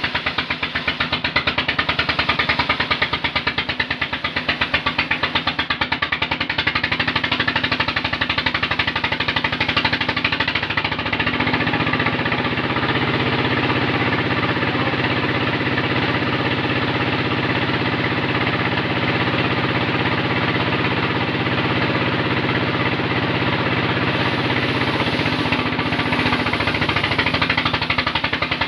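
Engine of an old jeep converted into a mobile sawmill, running fast with a rapid, even chatter. About twelve seconds in, a steady hum comes in and the pulsing evens out: the saw is cutting through acacia timber. The hum fades out shortly before the end.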